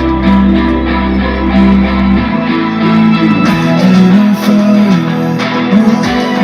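Music playing through a Zebronics Fort Nex 90 soundbar in a sound test; the deep bass drops out about two seconds in.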